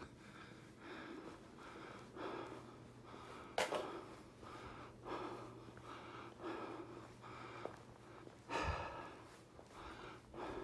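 A person breathing hard in a steady rhythm, short puffs about every 0.7 s, with two sharp knocks against the phone about a third of the way in and near the end.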